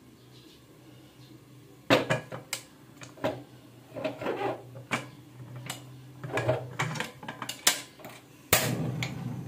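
Aluminium cooking pot and lid being handled on a gas hob: irregular metal clicks and knocks, starting about two seconds in and coming thicker and louder near the end.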